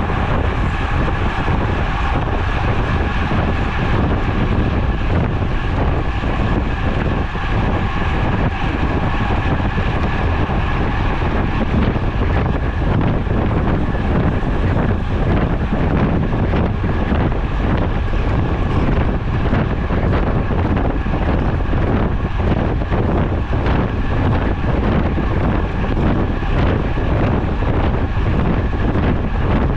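Wind buffeting a bike-mounted action camera's microphone at about 30 mph, a steady loud rush heaviest in the low end, with tyre and road noise from the road bike mixed in and a faint steady high whine underneath.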